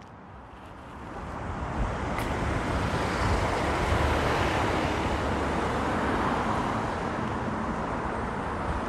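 Road traffic noise on a city street, swelling over the first few seconds and then holding steady.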